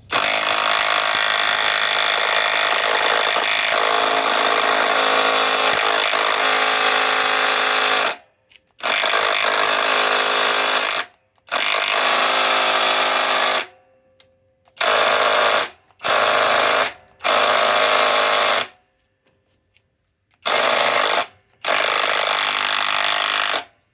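SKIL PowerCore 20 cordless impact driver (1800 in-lb) hammering a 10-inch lag screw into wood. It runs steadily for about eight seconds, then in seven shorter trigger pulls with short pauses between them as the screw goes deeper.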